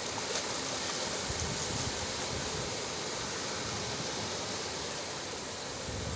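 Sea waves washing on the shore in a steady, unbroken rush of water noise.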